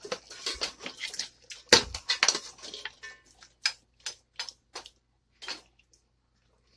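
A spoon clanking and scraping against the cooking pot as mutton is stirred and fried with yogurt. There is rapid clattering for the first few seconds, then slower single knocks, and it stops about five and a half seconds in.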